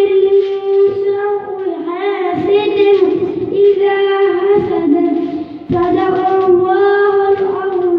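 A young boy reciting the Quran in the melodic, chanted style of qirat, holding long notes in flowing phrases, with a short breath about six seconds in.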